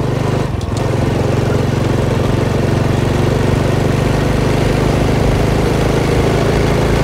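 Motorbike engine running steadily while riding along at an even speed.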